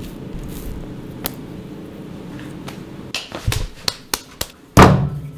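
A low steady hum, then a few sharp taps, and about five seconds in a heavy thud as a ball of clay is slapped down onto the metal wheel head of a potter's wheel.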